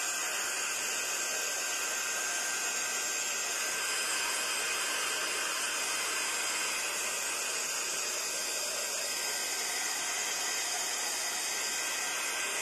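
Handheld craft heat tool blowing hot air, a steady hiss with a faint high whine, drying freshly brushed black paint on a small canvas.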